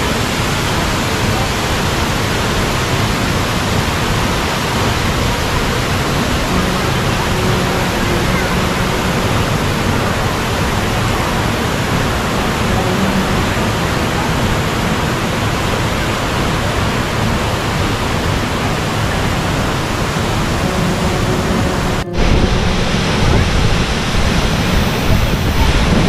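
High waterfall: a loud, steady rush of falling water. About 22 seconds in, it cuts abruptly to a closer, louder rush with a deeper rumble.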